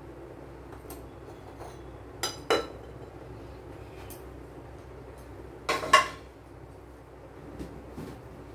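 Kitchen containers and utensils clinking as they are handled: two quick pairs of sharp clinks, about two seconds in and again about six seconds in, with a few lighter ticks between.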